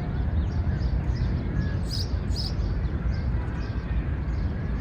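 City-park ambience: a steady low rumble, with small birds chirping high, most clearly as a pair of short chirps about two seconds in.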